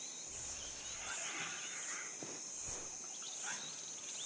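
Grassland ambience of insects trilling steadily at a high pitch in an even pulsing rhythm, with a few faint short bird chirps.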